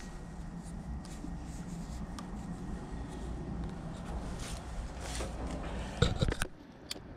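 Light rustling and handling noises over a steady low rumble, then a few sharp clicks and knocks about six seconds in.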